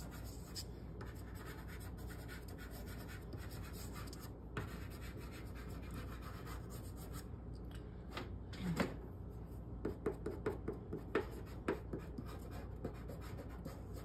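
Soft pastel scratching and fingers rubbing on watercolor paper, as pastel is smudged and drawn into the trees. About halfway through come a run of short, light taps and strokes of the pastel stick on the paper.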